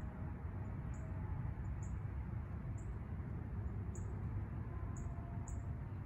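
Small birds giving short, very high, thin call notes, about one a second at irregular intervals, over a steady low rumble.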